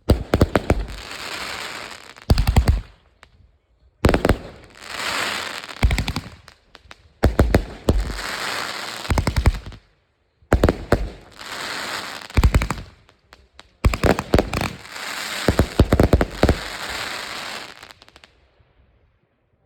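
Consumer fireworks going off in the grand finale: about six volleys of sharp, loud bangs roughly every three seconds, each trailing off into a second or so of hiss. They stop near the end.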